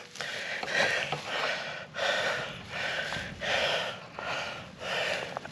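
A man breathing hard and rhythmically, a little more than one breath a second, from the effort of prying a rubber exhaust hanger off with a screwdriver.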